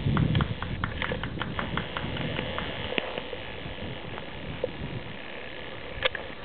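Footsteps crunching through snow: a quick run of crisp crunches over the first three seconds, then sparser ones, with a sharper crunch near the end.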